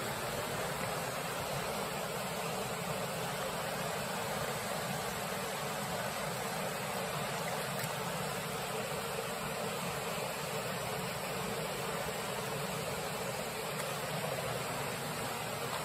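Steady rush of a mountain stream's rapids, white water running over rocks, even and unbroken.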